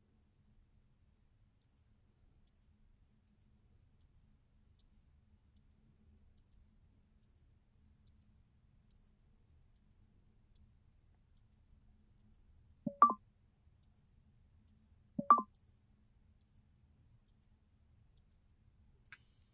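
Wrist blood-pressure monitor beeping once with each detected heartbeat as it takes a reading: short, identical high beeps a little faster than one a second, about twenty in all. Two louder short knocks come about two-thirds of the way through.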